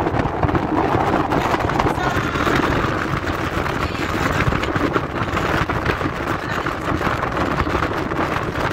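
Wind buffeting the microphone, mixed with the road and engine noise of a moving vehicle, heard from an open position on the vehicle.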